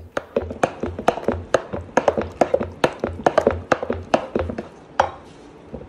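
Wooden haleem masher pounding and churning a thick mash of cooked lentils, grain and shredded meat in a metal pot: rapid wet thuds and knocks, about four to five a second, easing off near the end.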